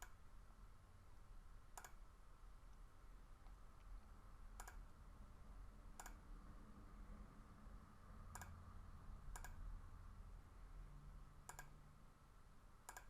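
Faint, isolated computer mouse clicks, about seven of them spaced one to three seconds apart, over a quiet steady background hum.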